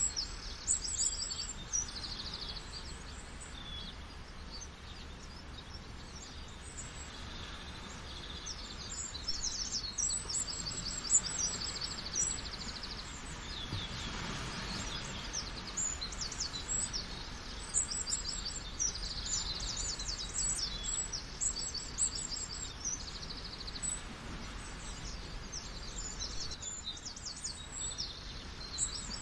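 Many small birds chirping and trilling in quick high twitters, over a steady rushing wash of falling water.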